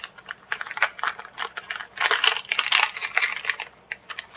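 Crinkling and crackling of a plastic anti-static wrapper being opened by hand to take out a new laptop memory module, a rapid string of small crackles that is busiest about halfway through.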